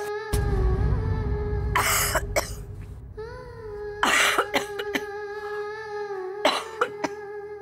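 An elderly woman coughing hard in several separate fits, about a second and a half to two seconds apart, over a steady background music drone.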